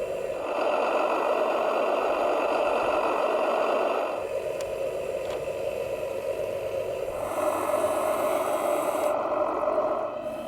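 Small motor on a 1/16-scale RC truck running with a buzzing rattle, getting louder for two spells of about three seconds each, with a lower hum in between.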